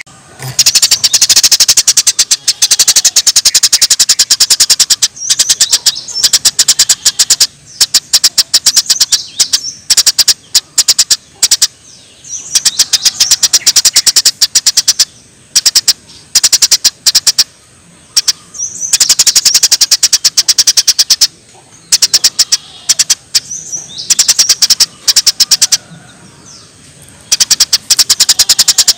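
Small songbird's rapid-fire trill, a dense run of very fast, sharp high notes, repeated in bursts of about two seconds with short pauses between them.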